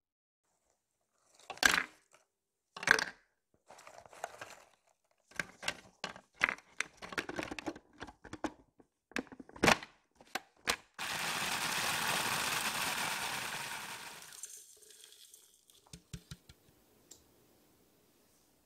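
Pieces of baked honey-cake layer cracking and clattering as they are dropped into a plastic food-processor bowl, with clicks of the bowl and lid. Then the food processor runs for about three seconds, grinding the pieces into crumbs, and winds down.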